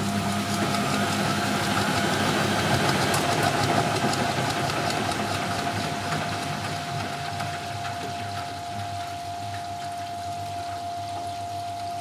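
Siemens Siwamat 285 washing machine's drum motor spinning the drum up briefly. A whine rises over the first few seconds as the drum gathers speed over a steady hum, then the machine runs down and quietens again after about six seconds.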